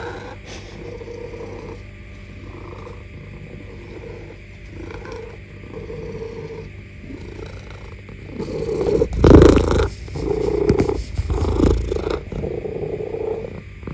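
Domestic cat purring in a steady, pulsing rhythm while rubbing against a person. From about eight seconds in it gets much louder and closer, with fur brushing right against the microphone.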